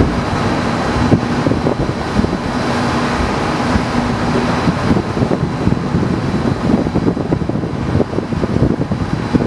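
Distant aerial fireworks shells bursting in a dense barrage: many overlapping booms running together into a continuous rumble.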